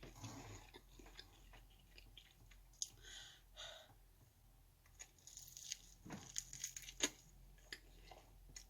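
Faint close-up chewing of crunchy fried chicken: a scatter of small crackles and clicks from the fried breading as it is bitten and chewed, busiest midway and again near the end.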